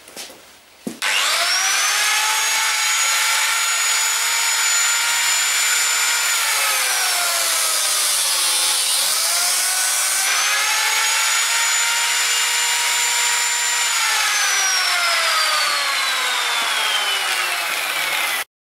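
Lamello biscuit joiner (plate joiner) running, a high motor whine with a blade cutting slots in a wooden frame. Its note starts about a second in, sags slowly as the blade cuts in and climbs back, then falls away again near the end before cutting off suddenly.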